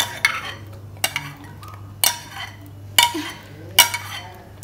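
A few sharp clinks and knocks, about a second apart, of a glass bowl against a metal pan as thick blended tomato purée is poured and scraped out into the pan.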